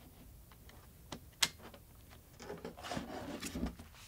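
Laptop battery pack pushed into its bay on the underside of the laptop, with small clicks and one sharp click about a second and a half in. Then rubbing and handling of the laptop's plastic case as it is lifted and turned over, with a soft low knock near the end.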